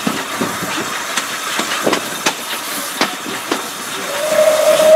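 Steam-hauled carriages running along, the wheels clicking sharply over rail joints every half second or so under a steady rushing hiss. Near the end the locomotive's whistle starts, one steady tone growing louder.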